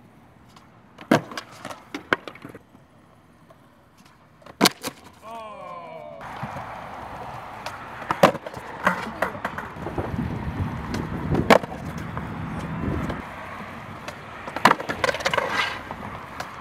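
Skateboard being ridden on concrete during fakie 360 flip attempts: sharp pops and the board clacking onto the ground, and from about six seconds in the steady rolling of its wheels broken by loud board impacts. The tries end with the board clattering away after a bail.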